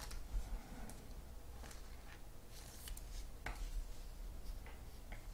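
Faint rustling and a few light clicks of trading cards being handled and slid off a stack, over a low steady hum.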